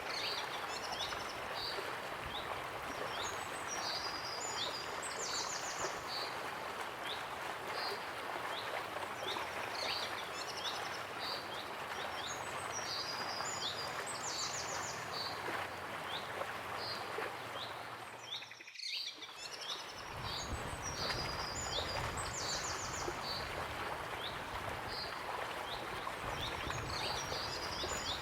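Waterfall rushing steadily, with songbirds chirping and trilling over it in repeated phrases. The rush briefly drops away about two-thirds of the way through, then returns with a deeper rumble.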